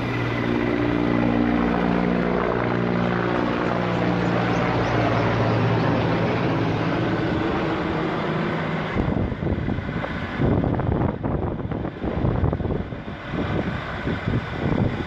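Aircraft engine droning, its pitch sliding slightly downward. About nine seconds in, irregular gusty rushing noise takes over.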